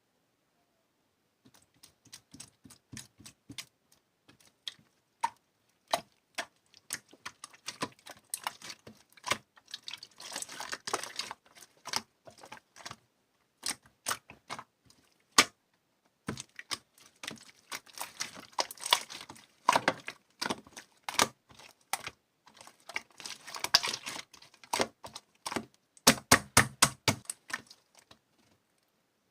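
Irregular runs of sharp clicks and taps, some in quick flurries, with a fast burst of louder clicks near the end.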